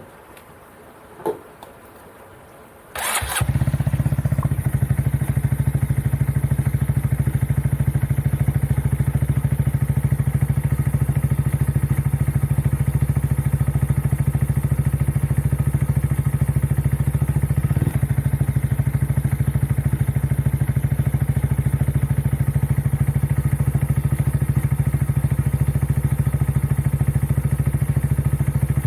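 Honda Monkey 125's single-cylinder four-stroke engine starting about three seconds in, then idling steadily. A single click comes about a second in.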